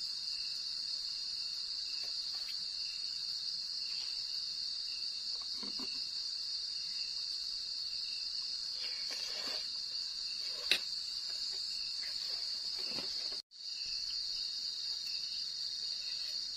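A steady high-pitched chorus of night insects, crickets, trilling without a break. A sharp click comes about eleven seconds in. The sound drops out completely for a moment about thirteen seconds in.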